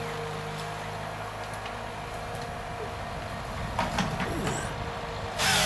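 Wheeled forestry harvester's diesel engine running steadily, with a few knocks about four seconds in. Near the end a loud high whine starts suddenly from the harvester head.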